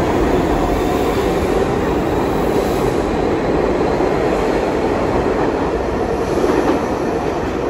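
R62A subway cars of the 42 Street Shuttle moving past along the platform: a steady, loud rumble of wheels on the rails, echoing in the underground station.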